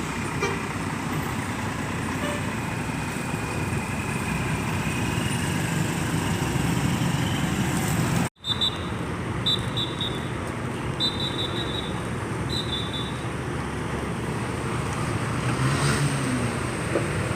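Tour bus diesel engine running with surrounding traffic noise. The sound drops out briefly about eight seconds in, and a few short, high beeps follow.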